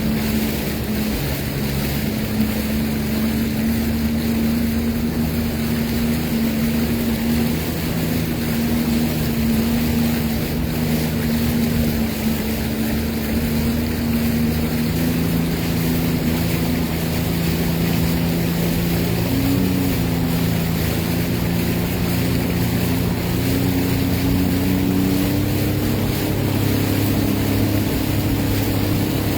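Sea-Doo Fish Pro personal watercraft engine running steadily, with a slight rise in pitch about two-thirds of the way through, over rushing wind and water noise.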